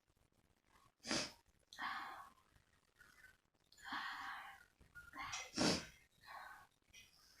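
A person sneezing twice, a short sharp sneeze about a second in and a louder one about four and a half seconds later, with noisy breaths in between; the sneezes are set off by sniffing red chilli powder.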